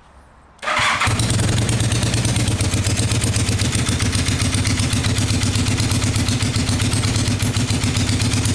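1979 Honda CB400T motorcycle's air-cooled parallel-twin engine starting: it fires about half a second in, catches almost at once and settles into a steady idle.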